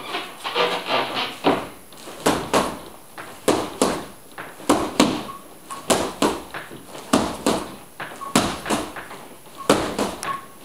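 Elbow strikes smacking a handheld padded strike pad, a long series of sharp slaps, often two or three in quick succession.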